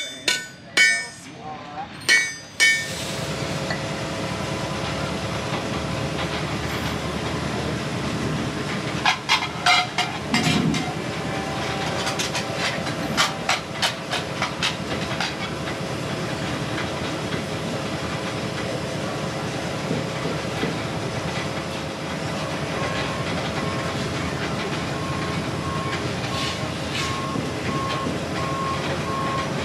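A smith's hammer rings on an anvil a few times in the first seconds. Then a steam-powered metal stamping press hisses steadily with escaping steam, with a flurry of sharp metallic knocks and clanks about a third of the way in.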